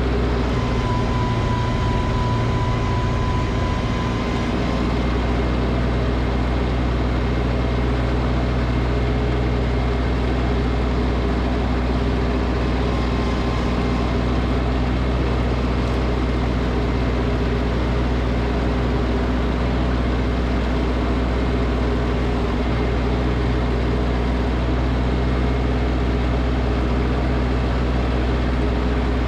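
Snowblower engine running steadily at a constant speed, with a brief high whine in the first few seconds.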